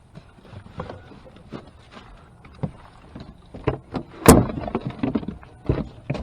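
Scattered knocks and thumps on a fishing boat's deck and hull, with one loud, sharp knock about four seconds in.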